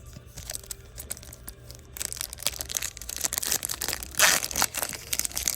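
A foil trading-card pack being torn open and crinkled by hand, with cards rustling. The crackle grows busier about two seconds in and peaks in a loud tearing rustle a little past four seconds.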